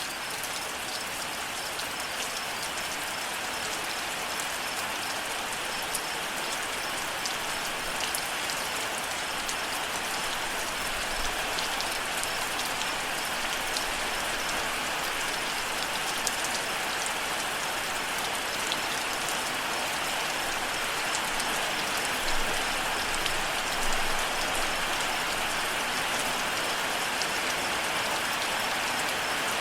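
Steady rain falling, with scattered individual drop clicks and a faint, even cricket chirping underneath.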